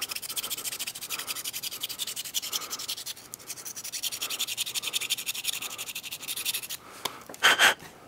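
Small round needle file rasping quickly back and forth inside the opening of a 3D-printed plastic pencil body, enlarging and smoothing the bore so the pencil's parts fit. The filing stops a little before the end, followed by a short, louder noise.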